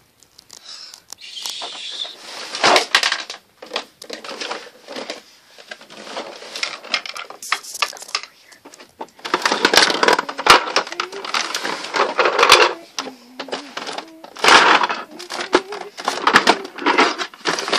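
Small plastic toys and toy furniture being handled, knocked together and set down, an irregular clatter of clicks and knocks with rubbing close to the microphone; busier in the second half.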